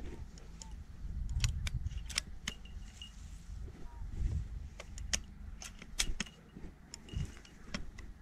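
Dry reed stems rustling and clicking against the camera as it moves through a reed bed, with low wind rumble on the microphone that rises and falls.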